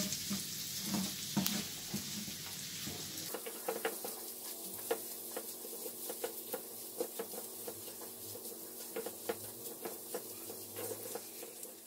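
Wooden spatula stirring and scraping diced chicken and bacon with melting cheese in a frying pan, making many small taps and scrapes against the pan. A light sizzle drops away about three seconds in, leaving mostly the stirring.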